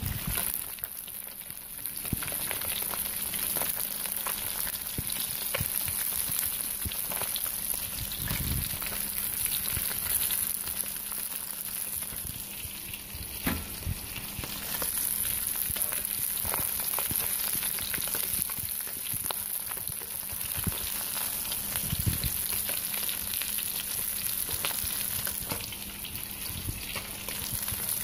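Crumb-coated fish deep-frying in hot oil: a steady sizzle with scattered pops and crackles.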